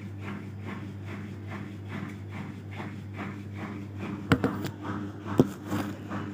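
Sharp automatic top-load washing machine in its spin-dry cycle: the motor hums steadily while the turning tub swishes in a rhythm of about three beats a second, with two sharp knocks about four and five seconds in. The tub is running level and balanced, which is why it takes the spin.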